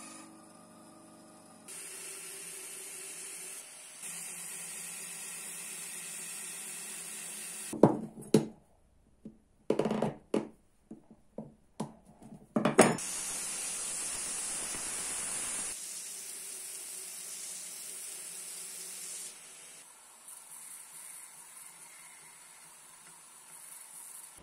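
Workshop tool sounds in cut-together clips: a machine, likely the belt grinder, running steadily, broken about eight seconds in by a few seconds of sharp knocks and clatters, then running again, louder at first and then quieter.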